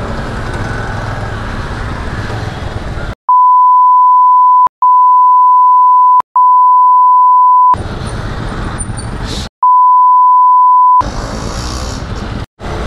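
Motorcycle riding noise in city traffic, cut off by an edited-in censor bleep: a loud, pure, steady beep that replaces all other sound. It comes as three beeps in a row, split by brief clicks, then road noise again, then one more beep, after which the riding noise returns.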